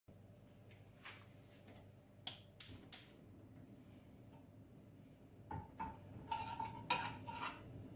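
Spoon and cooking pot clinking as a turnip, sugar and water mixture is transferred into the pot: a few sharp knocks in the first three seconds, then a quicker run of ringing clinks from about five and a half seconds on.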